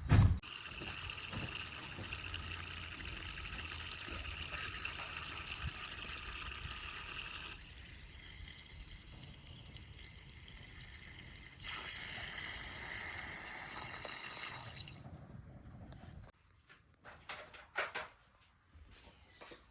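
Water running steadily from a tap, its sound shifting twice as the flow changes, then shut off about fifteen seconds in, followed by a few light knocks.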